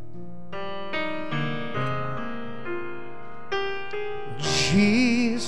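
Keyboard playing slow, sustained chords that change every second or so, the introduction to a slow worship song. Near the end a singer comes in on a held, wavering note.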